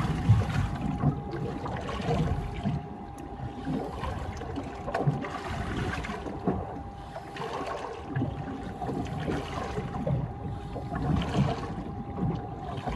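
Water slapping and lapping against a small boat's hull in an uneven wash, with soft low knocks and a faint steady hum throughout.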